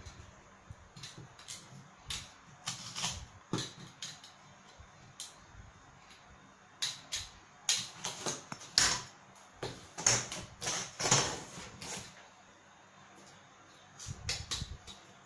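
A utility knife cutting cardboard, with scattered clicks, scrapes and rustles as the cardboard is handled and trimmed. A run of sharper scrapes and clicks comes in the middle.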